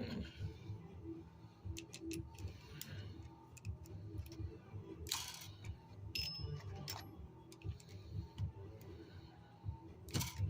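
Small metallic clicks and brief rattles of a hand priming tool and brass cartridge cases being handled while a primer turned sideways is cleared, with a longer rattle about halfway through and another near the end.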